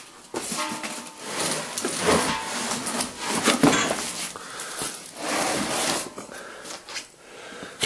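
Rotted wood from an old dog sled's box being torn and scraped off its frame: irregular scraping and cracking of wood.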